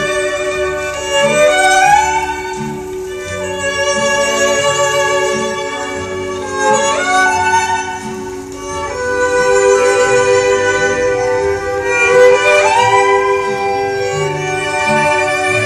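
Recorded music played through a JBL Hartsfield loudspeaker: an instrumental passage led by a violin melody with several sliding notes, over held string chords and a pulsing bass line.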